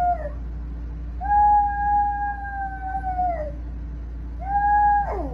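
Small dog howling: one long, steady howl that sags at the end, then a shorter second howl that drops away in a falling note.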